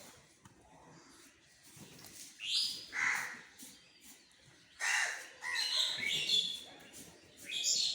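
Birds calling over a low background murmur, with a series of loud calls about two and a half seconds in, again from about five to six and a half seconds, and once more near the end.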